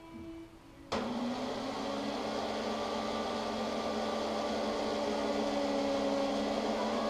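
A handheld electric power tool switches on about a second in and runs at a steady speed, held against a piece of plastic water-main pipe to shape it.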